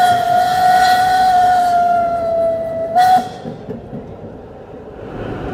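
Steam locomotive whistle blowing one long steady blast of about three seconds, with a short second toot right after it. Then the rumble of the train running on the rails.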